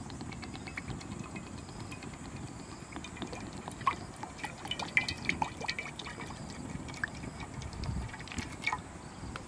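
A thin stream of liquid poured into a hot wok, the pool in the pan bubbling and sizzling over a wood fire, with scattered sharp crackles and pops that start about a third of the way in and are loudest near the middle.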